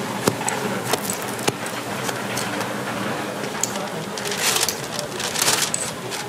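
Metal spatula and tongs clicking and scraping on a flat griddle where hotteok fry in oil. Twice between about four and six seconds, a paper sleeve rustles as a hotteok is slipped inside.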